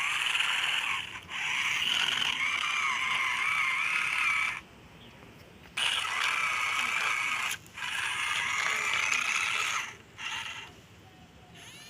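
Small electric motor and plastic gearbox of a toy vehicle whirring in repeated runs, starting and stopping about five times, the last run short, with its pitch wavering as it works.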